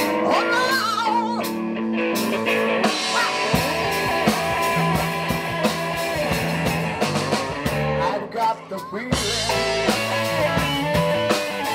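Live rock band playing: electric guitars over a bass and drum kit, with a short drop in loudness about eight and a half seconds in.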